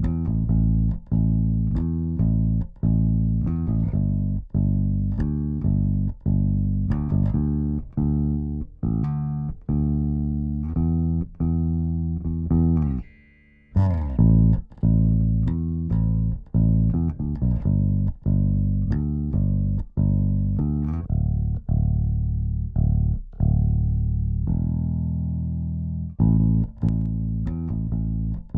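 Electric bass guitar part playing a steady run of plucked notes, with a short break about halfway where the part starts over. By the end it is heard through the SSL Native X-Comp compressor plugin.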